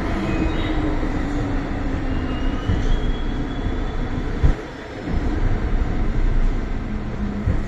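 MTR Tseung Kwan O Line M-Train (Metro-Cammell EMU) running: steady wheel-on-rail and motor noise, with a faint high whine from about three seconds in. A sharp knock about halfway through is followed by a brief dip in level, and there is another knock near the end.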